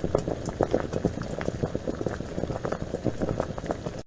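Electric multicooker boiling, with a dense, irregular bubbling and popping that stops abruptly at the end.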